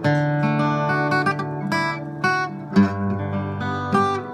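Background music: acoustic guitar playing strummed chords, with fresh chords struck about a third of the way in and again near the end.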